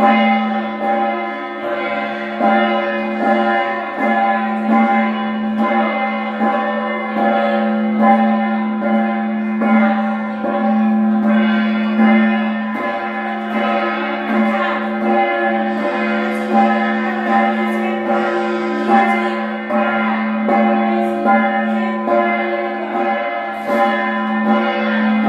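Metal gong of a Hmong shamanic ritual, beaten about once a second, its ringing tone held unbroken between strokes.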